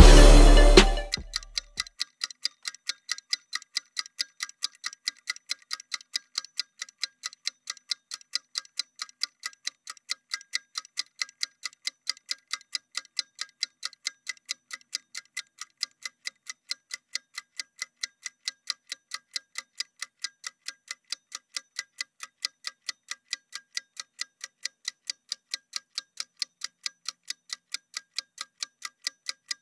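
Clock-like ticking sound effect, a rapid, even tick several times a second, marking a rest-period countdown timer. Electronic music fades out in the first second or two.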